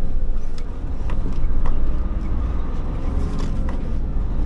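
Hino Profia tractor-trailer's diesel engine and road noise heard inside the cab as the truck completes a left turn and drives on: a steady deep drone, with a few faint light clicks.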